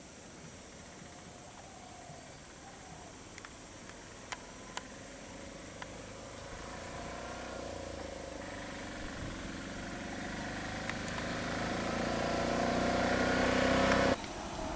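Auto-rickshaw (three-wheeler tuk-tuk) engine approaching, its steady drone growing louder, then cutting off suddenly near the end.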